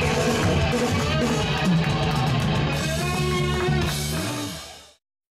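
Live band playing with electric guitars and drum kit, fading out to silence near the end.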